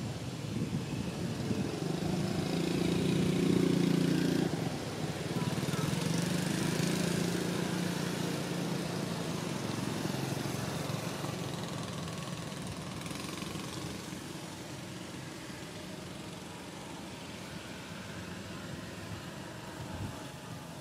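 A motor engine running steadily, loudest a few seconds in and then slowly fading.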